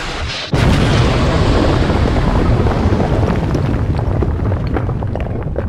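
Explosion sound effect: a steady rushing noise breaks into a sudden loud blast about half a second in, followed by a deep rumble with scattered crackles that slowly fades.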